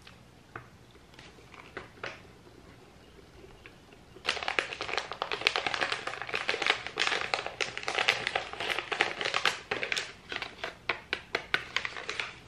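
Food packaging crinkling and rustling as it is handled: a few faint clicks, then from about four seconds in, a dense run of quick crackles that goes on for about eight seconds.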